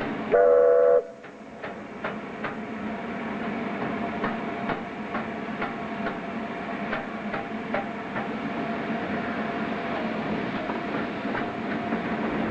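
A steam locomotive's whistle gives one short blast, the loudest sound here, followed by the steady running of the train. The wheels clickety-clack over the rail joints at a steady pace.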